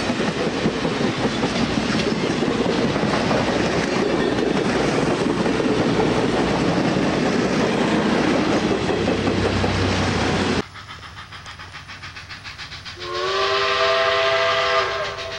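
Passenger train cars rolling past close by, a loud steady rush of wheel and track noise for about ten seconds, which cuts off abruptly. Near the end, the steam whistle of Southern 2-8-2 No. 4501 sounds as a chord of several steady notes held for about two seconds.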